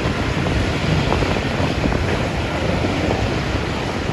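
Wind buffeting the microphone over the low rumble of a slowly moving rail train.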